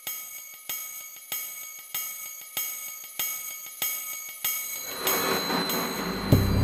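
Background music: a steady pulse of bell-like chiming ticks about every 0.6 seconds. Near the end a rising swell builds under it, topped by a low hit just before the close.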